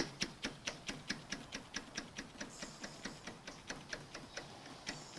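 Metal lathe's drive train ticking as the chuck is turned slowly by hand through one revolution, driving the carriage along the leadscrew so the thread pitch can be measured. The clicks come about five a second, then space out and fade, stopping near the end.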